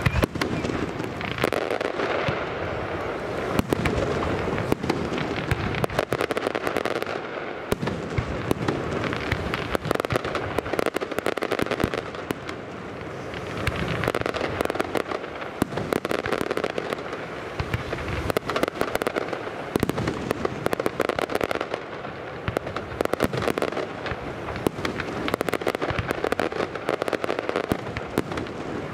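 Aerial fireworks display by Pirotecnia López, firing without pause: a dense run of bangs and crackling bursts from shells and rising comets, swelling and easing every few seconds.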